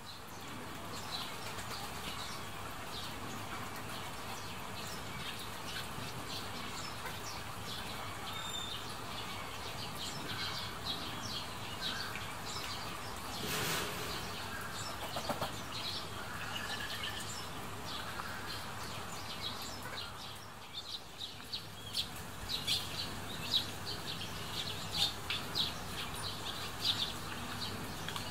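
Small birds chirping in quick short notes, more densely in the last several seconds, over a steady low hum.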